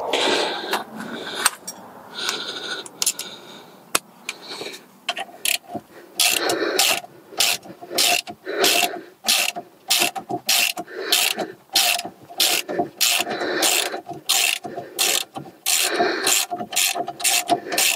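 Socket ratchet clicking in quick repeated strokes as a front brake caliper carrier bolt is undone, two or three strokes a second from about five seconds in. Before that, quieter scraping of the socket being fitted onto the bolt.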